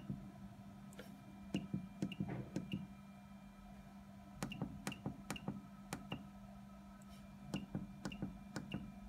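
Keys being pressed on a Liquid Controls Truck III electronic register's keypad to enter a truck registration number. Each press is a click with a short high beep, coming in three quick runs, over a steady low hum.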